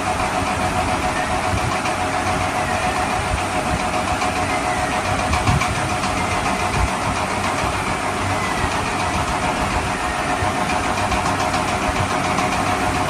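A steady engine-like running sound, like an idling vehicle engine, holding an even level throughout.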